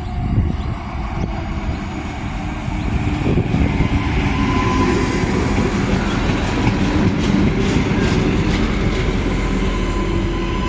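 Adelaide 3000/3100 class diesel railcars running in alongside the platform: a heavy engine and wheel rumble that grows louder about three seconds in as the cars draw level. A thin steady squeal runs under it through the second half.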